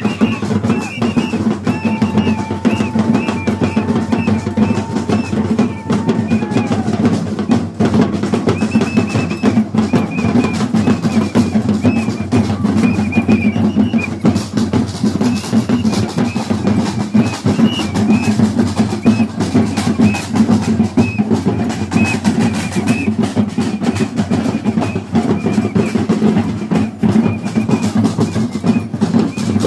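Bumba meu boi street band playing percussion-led music: fast, dense drumming with snare rolls and a steady beat. Short repeated high notes run over the drums, with one long held note early on.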